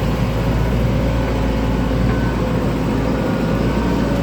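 Heavy diesel machinery engines, backhoe loader and tractor, running steadily with a strong deep rumble.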